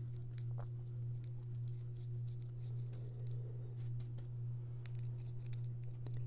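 Faint scratchy ticks of a soft paintbrush dabbing thinned chalk-style paint into a clay casting and dipping into a foam container, over a steady low hum.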